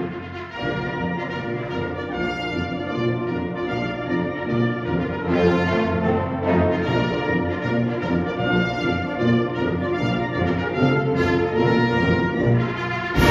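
High school concert band playing sustained chords, with the brass to the fore.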